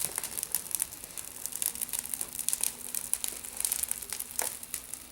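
Wood bonfire crackling, with irregular sharp snaps and pops.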